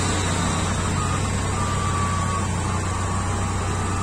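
Mitsubishi 4G91 four-cylinder engine idling steadily with its bonnet open.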